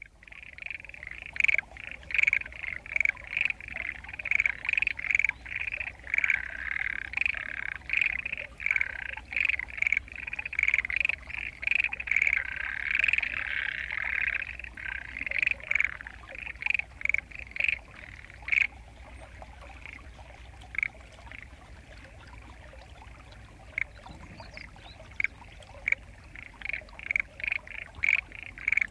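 A chorus of frogs croaking loudly in a flooded rice paddy, many calls overlapping. About two-thirds of the way through it thins to scattered single croaks, then builds up again near the end.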